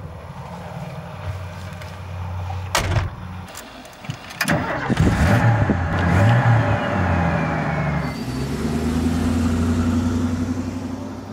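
Older car's engine starting about four and a half seconds in, revving up and down, then running steadily. A sharp knock comes just under three seconds in.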